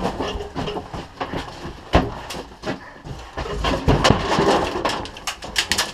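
Irregular knocks and sharp clicks, with a fast run of sharp clicks near the end.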